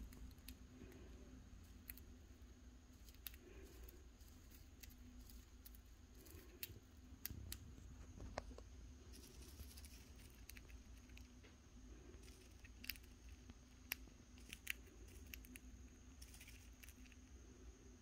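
Budgie husking spray millet seeds with its beak: faint, irregular little clicks and cracks, a few of them sharper.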